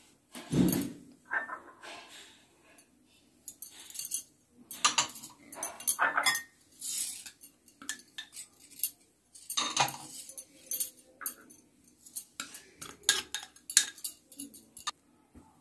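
Plastic spoon knocking and scraping against glass bowls as spice powders are spooned out: irregular clinks and taps, with a duller knock about half a second in.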